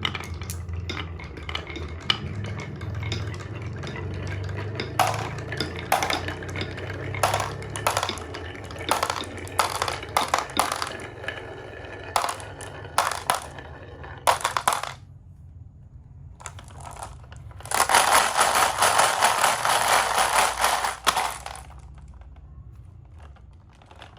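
Marbles rolling along a marble run: a low rolling rumble at first, then many sharp clicks and clinks as the marbles strike track pieces and each other. About eighteen seconds in comes a dense, loud clattering rattle lasting about three seconds, followed by a single click near the end.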